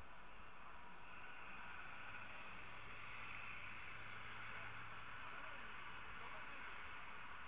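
Faint steady street and riding noise in light city traffic, with the low steady hum of a city bus engine close by from about two seconds in, dying away about six and a half seconds in.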